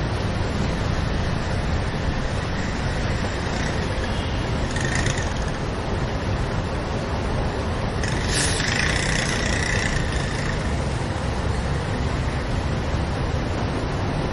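Street traffic heard while driving: a steady rumble of engines and tyres on the road, with a brief hiss about five seconds in and a longer, louder hiss from about eight to ten seconds.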